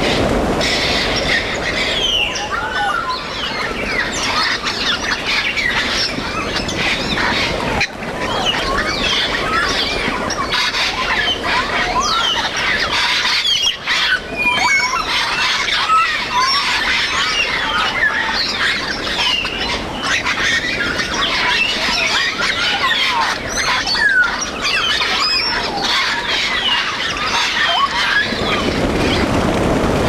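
A large flock of grey parrots calling all at once: a dense, continuous chatter of short rising and falling whistles and squawks. Near the end a low rush of many wingbeats builds as the flock takes off.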